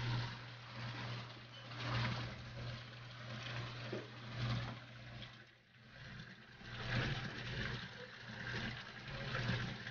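Water pouring and splashing in live-shrimp holding tanks, swelling and easing as a hand net scoops through, over a steady low hum.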